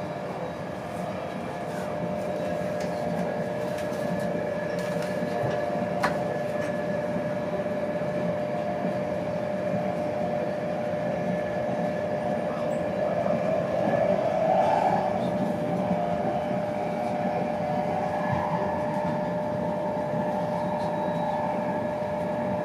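Steady running noise inside a Mark 4 passenger coach of an InterCity 225 train travelling at speed, with a constant hum-like tone over the rumble. There is one sharp click about six seconds in, and the noise swells briefly around the middle.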